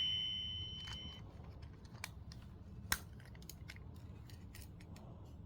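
Toy microwave's electronic chime: one high tone that fades out over about a second as its cooking sound ends. Then small plastic clicks from the toy being handled, one sharper than the rest about three seconds in.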